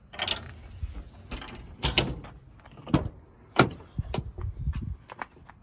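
Compartment doors and latches on a truck's utility service body being handled: a string of sharp clunks and clicks, about half a dozen in five seconds.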